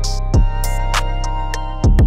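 Background music for a montage: an electronic track with held synth chords, deep kick-drum hits and sharp higher percussion.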